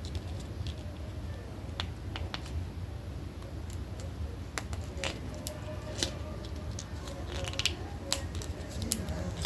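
Scattered small clicks and taps of a plastic action figure and its accessories being handled, over a low steady hum.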